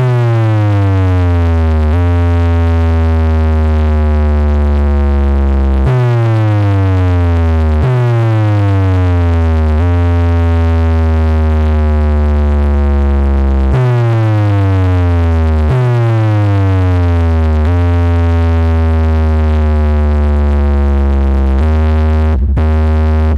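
Stack of DJ bass boxes playing a speaker-check bass test track at high volume. Deep sustained bass notes alternate with electronic tones that slide downward in pitch, repeating every few seconds. Near the end the bass breaks into short choppy pulses.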